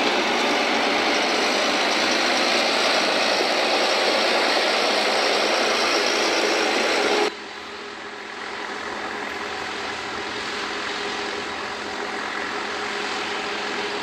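Farm harvesting machinery running with a steady, noisy mechanical sound. Just past halfway it cuts off abruptly to a quieter take of machine noise with a faint steady hum.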